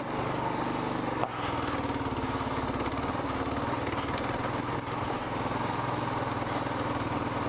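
Kawasaki KLR650's single-cylinder engine running steadily under load as the motorcycle climbs a rocky trail, with one sharp knock a little over a second in.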